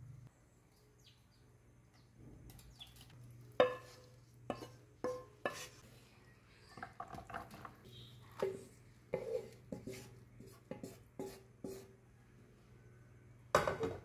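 A spatula scrapes and knocks against a nonstick wok as stir-fried water spinach is scooped out into a plastic serving tray. After a quiet first few seconds come irregular clinks and knocks, with a louder knock near the end.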